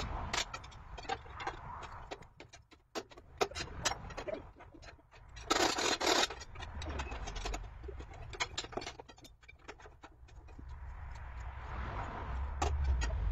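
Scattered knocks and clicks from work on a steel lattice mast, with one harsh scrape lasting under a second about six seconds in, over a low wind rumble on the microphone that grows louder near the end.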